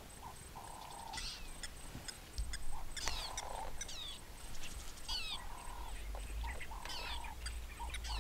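Birds calling in the bush: repeated short, high calls falling in pitch, alternating with steady mid-pitched notes about half a second long. A low rumble joins about two and a half seconds in.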